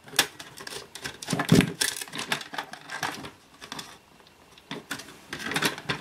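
Irregular clicks, snaps and rattles of a docking station's spring-loaded metal and plastic latch mechanism being worked by hand, with a duller knock about a second and a half in.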